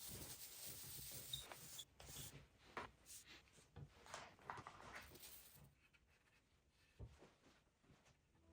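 Faint rubbing and scratching on a surface in short, irregular strokes, thinning out after about five and a half seconds with one sharper knock near the end.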